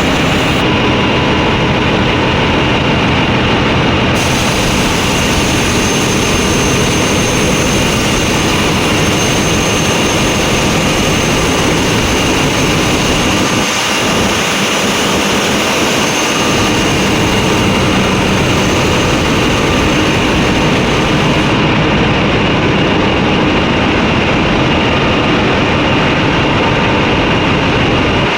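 Loud, steady industrial machinery noise with a thin, steady high whine over it, from on-site crankshaft grinding work on a large diesel engine. The lowest rumble thins out briefly about halfway through.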